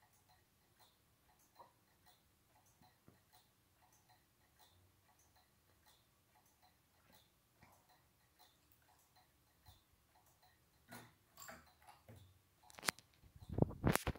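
Dr Woodward's gearless pendulum clock, built to John Wilding's design, ticking with faint, evenly spaced ticks. Near the end come a few louder knocks and rustling.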